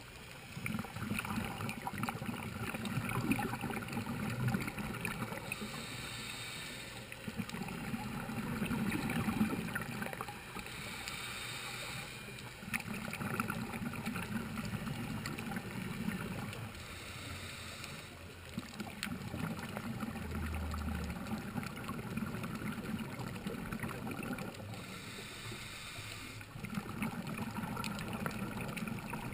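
Scuba regulator breathing heard underwater: four short hisses of inhaled air, each followed by a few seconds of low bubbling from the exhaled air.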